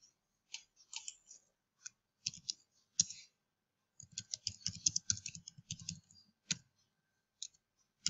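Computer keyboard keys clicking as text is typed: a few scattered keystrokes, then a quick run of keys from about four seconds in, with single clicks near the end.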